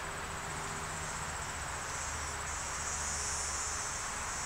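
A steady, shrill chorus of insects, a high, fast-pulsing drone that holds unbroken, over a faint low outdoor rumble.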